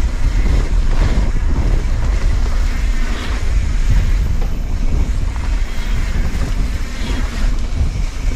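Wind buffeting the camera microphone: a loud, steady low rumble with a hiss over it.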